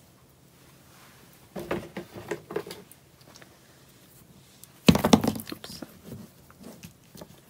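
Washi tape rolls being handled and set down on a hard surface: a run of light knocks and clicks, then a louder clatter about five seconds in.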